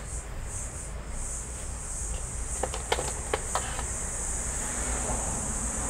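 Insects buzzing in a high chorus that pulses at first and turns steady about a second in, with a few sharp clicks around the middle and a low hum underneath.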